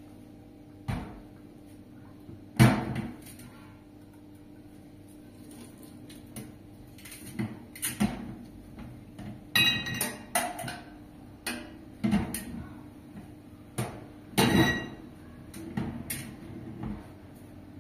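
Irregular knocks and clatters of objects being handled and set down, about a dozen, the loudest a few seconds in, a few with a short metallic or glassy ring.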